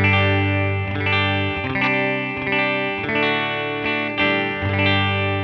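Electric guitar through a Line 6 HX Stomp modeler set to a clean tone, a US Princess amp model into a 12-inch Deluxe cab model. A few chords are played and left to ring, changing about every second.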